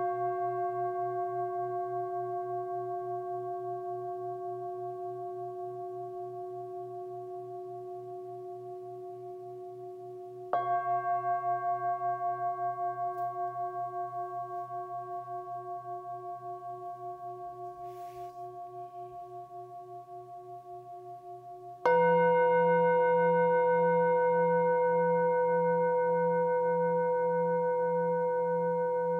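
Metal singing bowls struck with a mallet one at a time, each ringing on for many seconds and slowly fading with a steady pulsing waver. A bowl is struck again about a third of the way in, and a different bowl with a new set of tones rings out about three-quarters of the way in.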